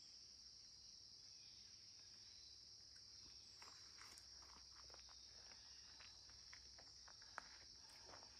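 Faint, steady, high-pitched insect chorus, with light footsteps from about three seconds in.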